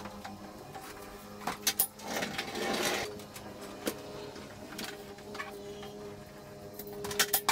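Hand pallet jack being worked and rolled over a concrete floor, with sharp clicks and a rattling stretch from it and the load of timber offcuts it carries. A faint steady hum sits underneath.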